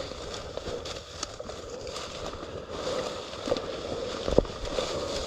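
Footsteps and rustling through field cover, with scattered crackles and one sharp knock about four seconds in.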